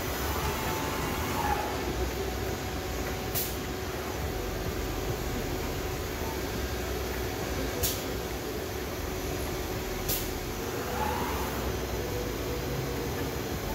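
Biesse Rover CNC machining centre running, with a steady mechanical hum and a faint steady tone. Its moving gantry gives short whining glides near the start and again about eleven seconds in, and brief high hisses of air sound four times.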